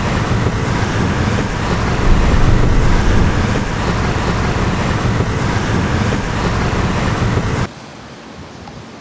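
Loud, steady road and wind noise heard from a car driving on a rain-soaked freeway. Near the end it cuts off suddenly to a much quieter, steady hiss of falling rain.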